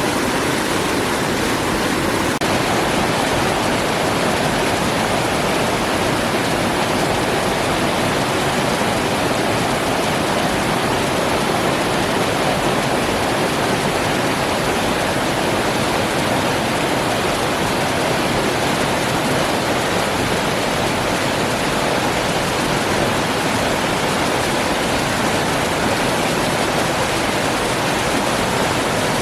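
Waterfall: falling water pouring in a loud, steady rush with no breaks.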